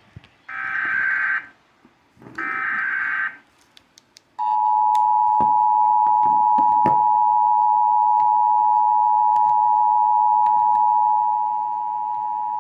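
Emergency Alert System tornado-warning alert. Two short, harsh data bursts of the SAME header, about a second each, are followed about four seconds in by the steady two-tone attention signal, which holds for about eight seconds.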